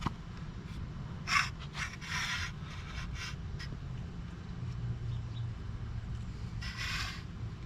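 Metal parts of an outboard's water pump scraping and rubbing as they are worked into alignment on the driveshaft: several short scrapes in the first half and a longer one near the end, over a low steady hum.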